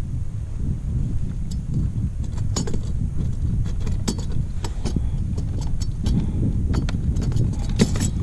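Wind buffeting the microphone with a low, uneven rumble. About a second and a half in, a scatter of small sharp clicks and rattles starts, bunched in short runs, from fishing gear being handled in a plastic kayak.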